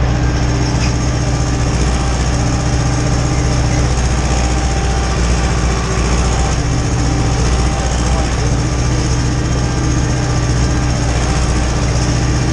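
Ursus tractor's diesel engine running steadily, heard from inside the cab, as the tractor pulls a seedbed cultivator across the field.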